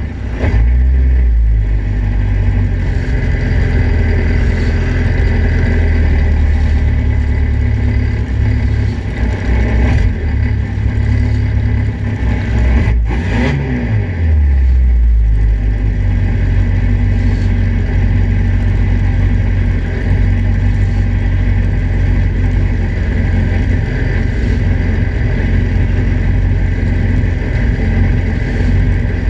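Vintage Datsun Roadster race car's engine idling at a standstill, heard from its open cockpit; the idle sags and picks up again about halfway through.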